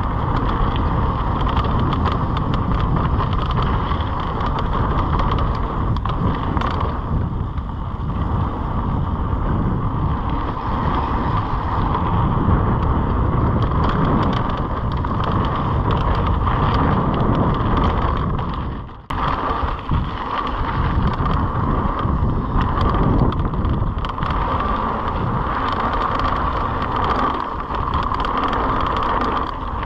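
Mountain bike descending a dirt flow trail: wind rushing over the camera microphone, with tyre noise on the dirt and a steady drone. The sound dips briefly about nineteen seconds in.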